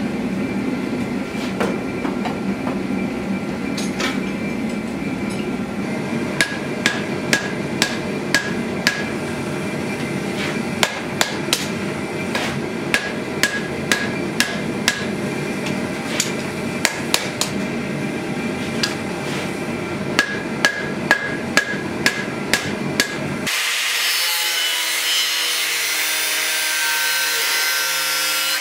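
A gas forge runs with a steady low rumble. Then a hammer strikes red-hot steel on an anvil, about two blows a second in short runs with pauses between, each blow ringing off the anvil. Near the end this gives way to an angle grinder whining steadily as it grinds the steel blade.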